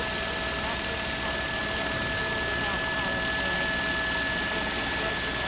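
Helicopter engine and rotor noise heard from inside the cabin: a steady rushing drone with a constant high whine and a rapid low beat.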